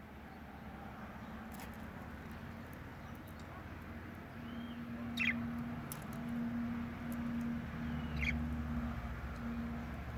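Budgerigars giving a few short chirps, two of them clearer about five and eight seconds in, over a low steady hum.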